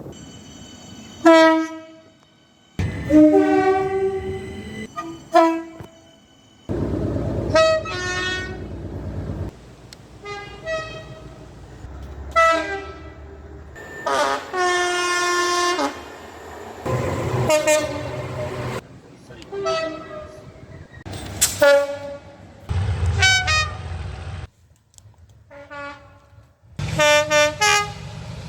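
A rapid run of British train horns sounding, about a dozen short toots and a longer blast of about two seconds midway, from different trains in clips cut one after another. Low rumble of the trains' engines and wheels sits between some of the soundings.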